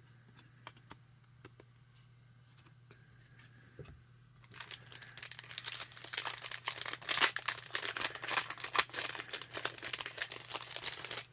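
A few faint clicks, then about four and a half seconds in a trading card pack's wrapper is torn open and crinkled, a loud, dense crackling that goes on to the end.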